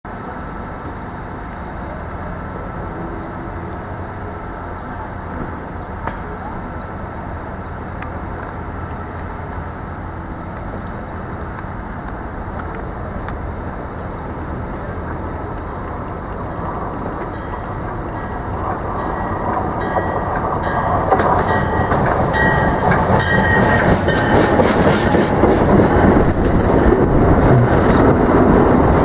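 Amtrak Cascades passenger train with Talgo cars approaching and rolling past along the station platform as it slows to stop: a steady distant rumble that builds over the last ten seconds into the close clatter of wheels on rail, loudest as the cars pass.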